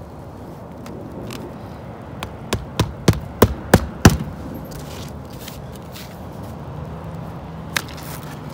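Hand hammer driving roofing nails through an asphalt ridge-cap shingle: a quick run of about six strikes, roughly three a second, the last the loudest, then one lighter knock near the end.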